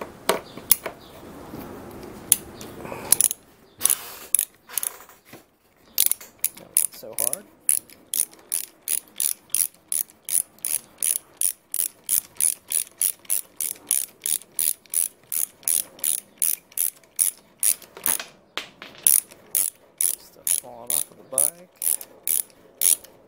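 Socket ratchet wrench clicking steadily, about three clicks a second, as it spins a motorcycle fork cap down onto its fork tube; the clicking starts a few seconds in.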